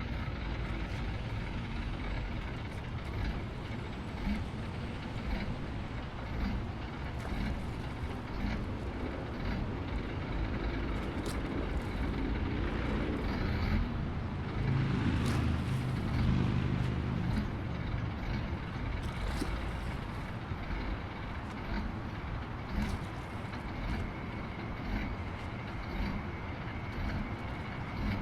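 Diesel engines of heavy earthmoving machines (bulldozer and excavators) running steadily. They swell louder for a few seconds about halfway through, with scattered clanks and knocks.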